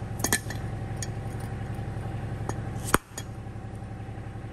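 A dead-blow hammer tapping a bushing into a steel tail-wheel hub: a quick pair of blows at the start, a light one about a second in, then three more, the loudest about three seconds in. The blows clink and ring, over a steady low hum.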